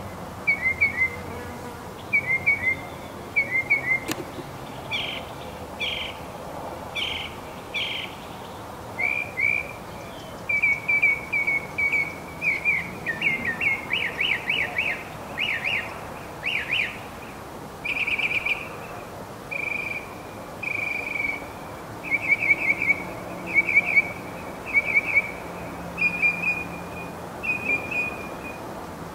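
Northern mockingbird singing: short chirped and whistled phrases, each repeated several times in quick succession before it switches to a different one.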